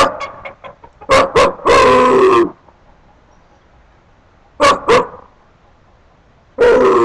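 Dog barking and howling: short barks in pairs, with two longer drawn-out howling calls, one about two seconds in and one near the end.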